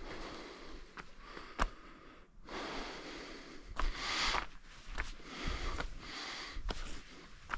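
A hiker's heavy breathing close to the microphone, in repeated hissing breaths about a second apart. Sharp clicks of steps on rock fall in between.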